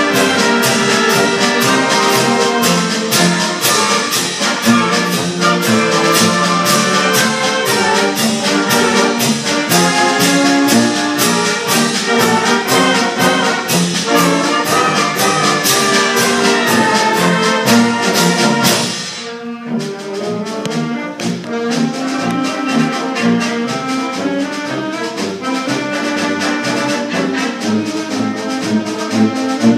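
Concert band playing, brass to the fore over a steady beat; a little past halfway it drops suddenly to a quieter, softer passage.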